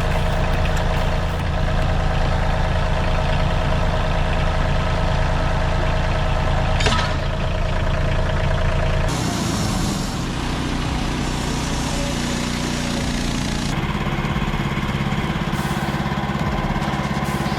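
Heavy machine engines running steadily, the sound changing abruptly twice as one machine gives way to another, with a brief sharp knock partway through.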